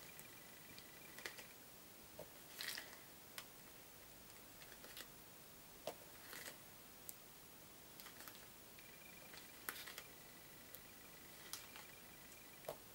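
Near silence broken by faint, scattered light clicks and taps, about a dozen at irregular intervals: small rhinestones and a pick tool being handled and pressed onto paper flowers on cardstock.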